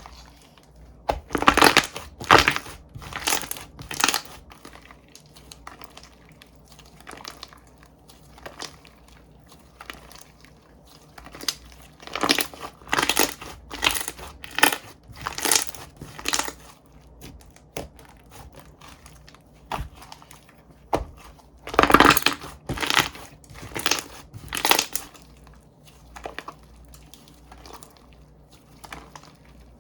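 Hands pressing and squeezing slime, with bursts of short noisy squishes in three groups: in the first few seconds, in the middle, and again about two thirds of the way in, with softer handling between.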